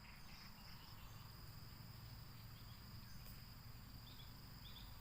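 Faint forest ambience dominated by a steady, high-pitched insect drone, with a few short chirps in the second half and a low rumble underneath.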